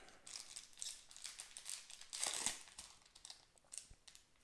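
Faint, irregular crinkling of a Magic: The Gathering booster pack's foil wrapper being handled, loudest a little past halfway.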